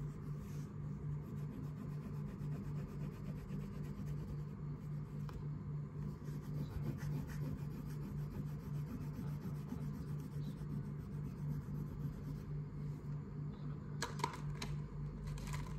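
Coloured pencil shading on paper, a continuous scratchy rubbing over a steady low hum that pulses a few times a second. A few quick clicks near the end.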